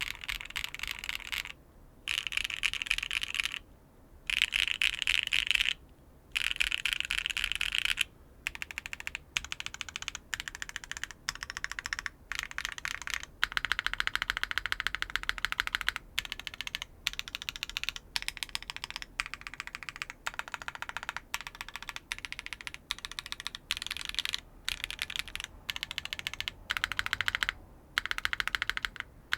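Typing on a custom mechanical keyboard fitted with HMX Sprite linear switches on a polypropylene plate with no foam and GMK keycaps. Rapid runs of keystroke clacks come in stretches of a second or more, with short pauses between them.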